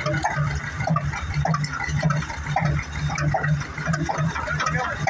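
Large antique flywheel stationary engine running under its own power just after being belt-started, its exhaust chuffing in a slow, even beat.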